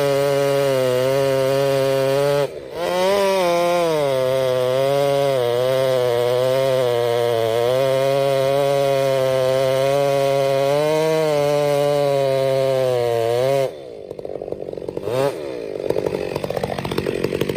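Two-stroke chainsaw running at high revs, its pitch wavering under load as it saws through wood, with a brief dip about two and a half seconds in. Near the end the throttle is let off and it drops to a lumpy idle, with one short blip of revs.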